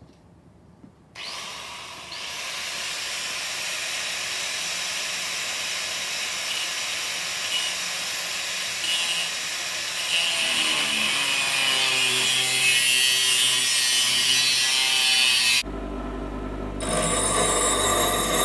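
Corded angle grinder cutting through a steel motorcycle side stand, a steady harsh grinding hiss. Near the end a bench grinder runs with a steady hum as a cut piece is ground on its wheel.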